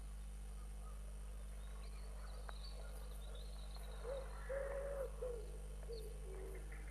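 A dove cooing from about four seconds in: three coos, the middle one longest, then a couple of shorter coos. Faint high bird chirps come before it.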